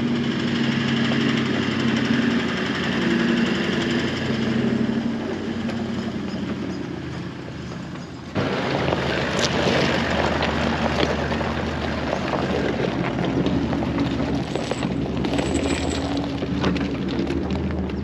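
Toyota LandCruiser 70-series four-wheel drive towing an off-road camper trailer, its engine running with a steady hum as it drives along a dirt track. About eight seconds in it is suddenly nearer and noisier, engine plus tyre noise, as it passes close and pulls away.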